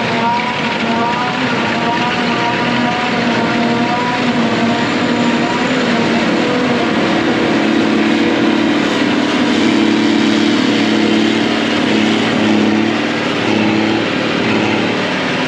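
Heavy truck's diesel engine running continuously while driving. Its note wavers in the first few seconds, then settles into a steady drone from about halfway through.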